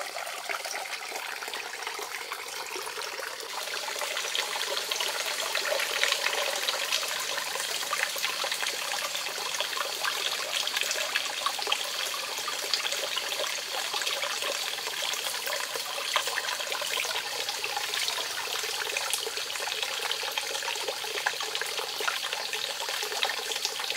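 Water trickling and splashing steadily into a small shallow pond, with many small droplet splashes; it gets a little louder a few seconds in.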